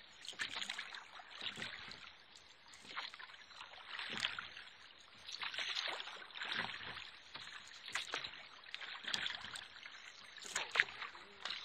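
Wooden oars of a rowing boat dipping and pulling through calm water, a splash and dribble of water about every second and a half.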